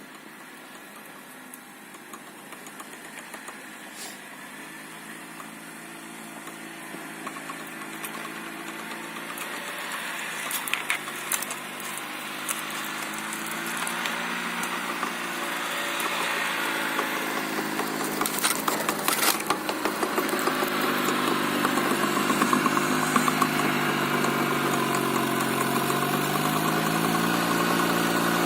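A small off-road car's engine running at low, steady revs and growing steadily louder as it comes closer, its note dipping slightly near the end. Sharp cracks and snaps come about ten seconds in and again around eighteen seconds in.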